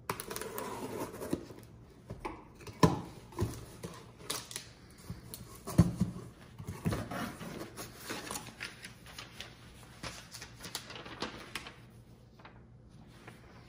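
A cardboard shipping box being opened by hand: packing tape slit and pulled off, flaps scraped and folded back, and a sheet of paper lifted out. Irregular scraping and rustling throughout, with a few sharp knocks of the box against the table, the loudest about three and six seconds in.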